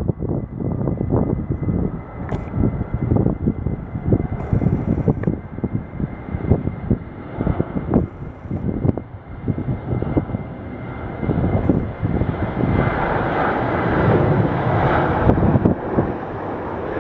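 An airliner's engines running, with a faint steady whine, getting louder over the last few seconds. Gusty wind buffets the microphone throughout.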